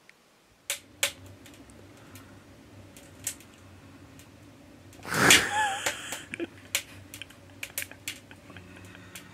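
Scattered sharp clicks and taps over a steady low hum. About five seconds in comes a louder rustling scrape with a short wavering squeak.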